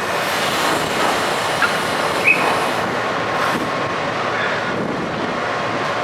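Steady rushing noise of the car ferry Reimei Maru's machinery and churning water as it manoeuvres away from the quay, with two brief high squeaks a little over a second and a half in and just over two seconds in.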